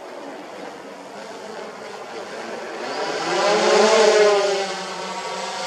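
Radio-controlled VTOL quadplane flying past low overhead in forward flight. Its propeller buzz grows louder over a few seconds and peaks about four seconds in, then falls in pitch and fades a little as it goes by.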